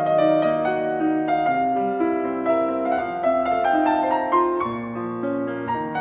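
Piano music: a melody of struck notes over held chords, new notes every fraction of a second.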